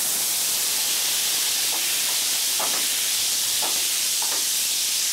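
Lemon juice hitting the hot butter in a frying pan with a turbot fillet, setting off a loud, steady sizzle and hiss of steam.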